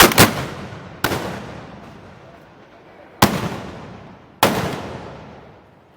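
Loud gunpowder bangs: two in quick succession at the start, then single bangs about one, three and four and a half seconds in. Each bang is followed by a long echoing decay.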